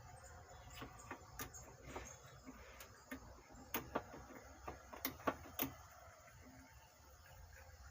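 Irregular light clicks and taps of a circuit board and small metal parts being handled and seated in an amplifier chassis, with a cluster of sharper knocks a little past the middle.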